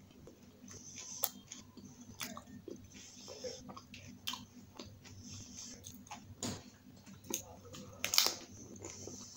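Close-up chewing and crunching of pani puri: crisp hollow puris biting and cracking at irregular moments between softer wet chewing. The loudest crunch comes about eight seconds in, as a fresh puri goes into the mouth.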